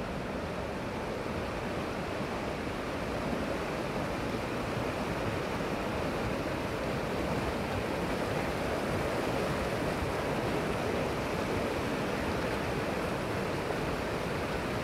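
Whitewater rapids rushing over rocks in a shallow, rocky stream, a steady hiss and rumble of churning water that swells slightly midway.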